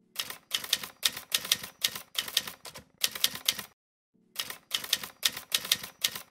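Typewriter key-clacking sound effect: quick runs of sharp clacks, a few clusters a second, with a short break just before four seconds in.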